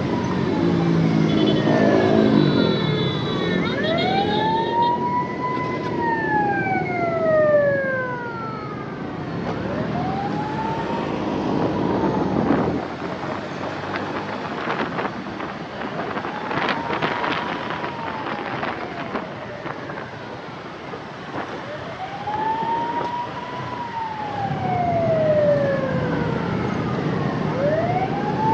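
Ambulance siren on a slow wail, rising and falling about once every six seconds over road traffic noise. A vehicle horn sounds briefly about two seconds in.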